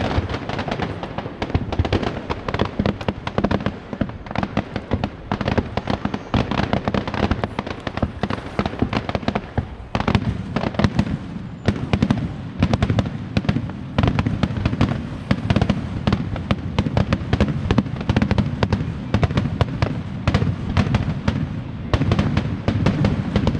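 Fireworks display: a dense, unbroken run of rapid crackling pops and bangs.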